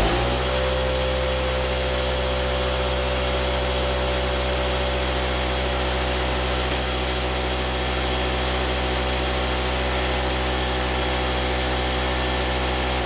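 Parkside PVKO 50 B2 vertical air compressor's electric motor and belt-driven pump starting up, with a brief rise in pitch as it comes up to speed. It then runs at a steady pitch and switches off near the end, winding down over about a second.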